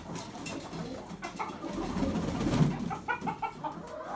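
Domestic pigeons cooing low, then hens clucking in quick repeated calls that start about three seconds in.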